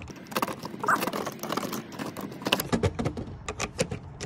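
Steel socket of a skate tool clicking against a skateboard axle nut as the nut is turned and tightened by hand: a string of light, irregular metal clicks.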